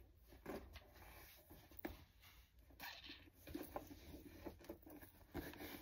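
Near silence with faint rustling and a few soft knocks from a leather tote being shifted on the shoulder and handled, over a low room hum.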